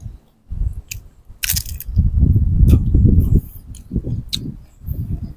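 Close-up chewing of crisp raw young green mango: sharp crunches about a second in and again shortly after, then a stretch of loud, dense chewing.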